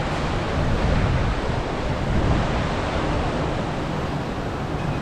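Rocky mountain stream rushing and splashing over boulders: a steady, even rushing noise.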